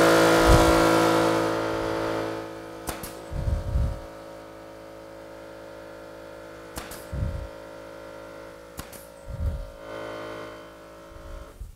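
An air compressor's motor runs steadily, louder at first, then settles and cuts off near the end. Over it a pneumatic 18-gauge brad nailer fires about three times into the plywood, each sharp shot followed by a low knock.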